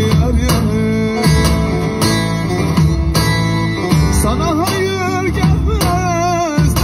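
Turkish folk song: plucked strings over steady bass notes, with a wavering melody line with strong vibrato coming in about halfway through.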